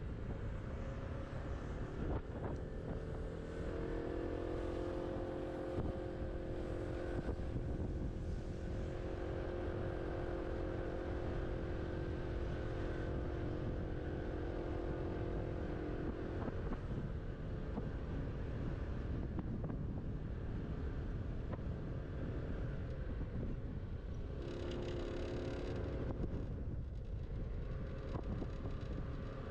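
A scooter riding along a street at a steady speed: a constant rumble of wind and road noise, with a steady whine from the drive that holds for long stretches, drops away for several seconds past the middle and comes back near the end.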